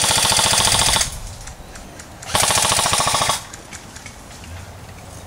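Airsoft rifle firing two full-auto bursts, each a fast rattle of shots: the first stops about a second in, and the second starts just over two seconds in and lasts about a second.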